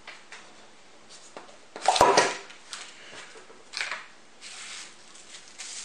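A small cardboard box being opened by hand and its plastic packing handled. A loud scrape and rustle comes about two seconds in, a shorter one just before four seconds, then softer rustling of plastic.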